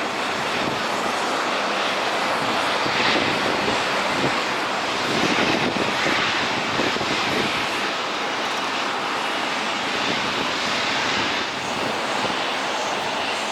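Airliner jet engines running at low power during ground movements, a steady rushing noise that swells a little partway through.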